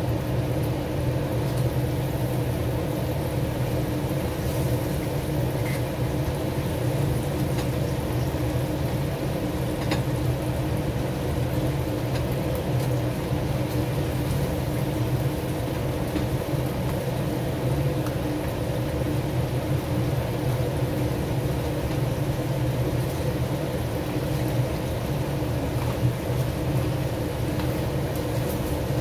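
Steady low fan hum from the kitchen appliances at the stove, with a few light clicks of metal tongs against the wok as crab pieces are turned in the sauce.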